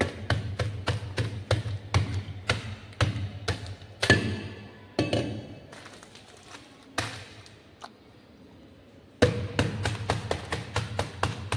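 Quick, repeated knocks of a plastic shaker bottle's base pounding a packet of chocolate biscuits on a granite counter, crushing the biscuits in their wrapper. The knocks come about three to four a second, break off partway through for a few single knocks and a quiet spell, then start again rapidly near the end.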